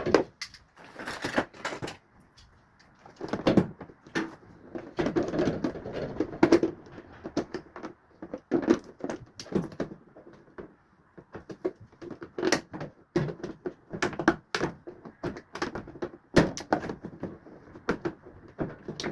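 Irregular knocks, clicks and clatter of a washing machine's parts being handled and worked on as it is dismantled, some knocks sharp and loud.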